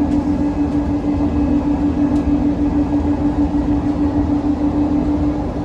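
Airport people-mover train running along its guideway, heard from inside the car: a steady rumble of the ride with a constant motor hum that breaks off near the end.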